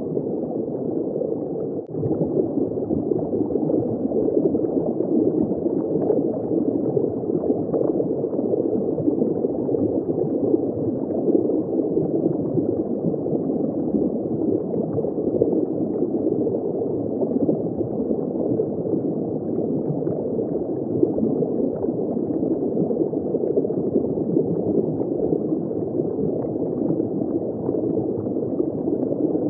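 Steady, muffled underwater bubbling and gurgling, with no high sounds, dipping briefly about two seconds in.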